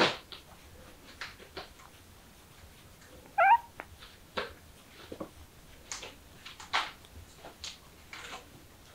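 A kitten gives one short, high-pitched mew about three and a half seconds in, with brief scattered rustles and taps around it.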